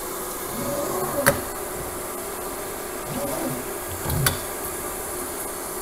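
A pull-down kitchen faucet's sprayer head being handled, giving two sharp clicks: one about a second in and another about three seconds later, as the head is brought back to the faucet. A steady hiss runs underneath.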